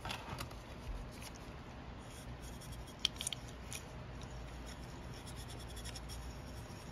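Faint scrapes and light clicks of a small-engine carburetor's metal body being handled and turned in gloved hands, with a sharper click about three seconds in, over a low steady hum.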